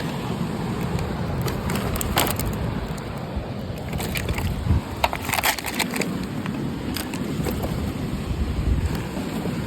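Sea surf washing steadily, with scattered sharp clicks and crackles of stones and plastic, thickest around two seconds in and again from about four to five and a half seconds.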